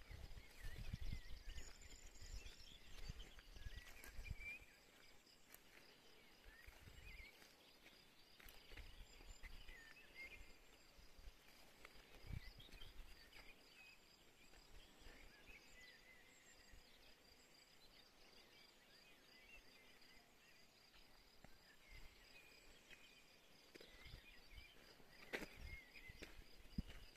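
Faint mountain-meadow ambience: an insect's steady high trill runs throughout, with scattered short bird chirps over it. Low rumbling on the microphone in the first few seconds, and a sharp click or two near the end.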